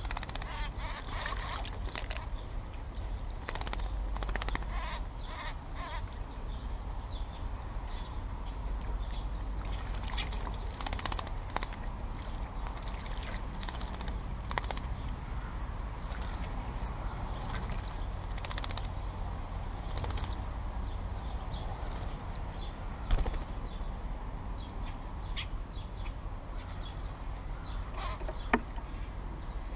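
Small birds chirping and calling in short, scattered notes over a steady low outdoor rumble, with two brief sharp knocks in the later part.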